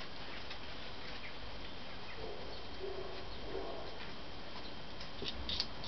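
Skunk foraging and eating vegetables and quail egg on brick paving, giving a few small, faint clicks and crunches near the end over a steady background hiss.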